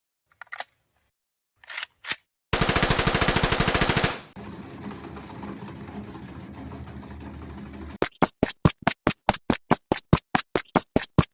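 Edited sound effects: a loud, very fast rattle like machine-gun fire for under two seconds, then a quieter noisy stretch. About eight seconds in, a run of sharp, evenly spaced beats starts, about six a second.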